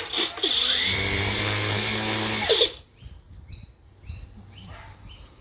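Makita brushless cordless multi-tool power head running at full speed, dipping for a moment just after the start, then released about two and a half seconds in and winding down with a falling whine. Faint bird chirps about twice a second follow.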